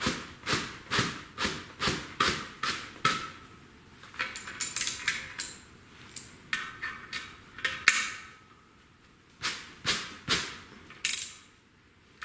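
Sharp metallic clicks and taps from a hand tool as the bolts holding a clutch and flywheel assembly together are loosened and taken out. There are about two clicks a second for the first three seconds, then scattered short groups.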